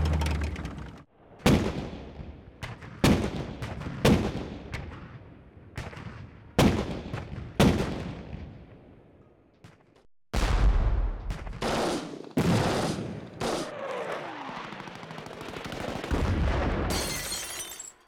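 Cinematic gunshot sound effects: about half a dozen sharp single shots at uneven spacing, each with a long echoing tail. Then heavier booms over a low rumble, with a falling tone after them.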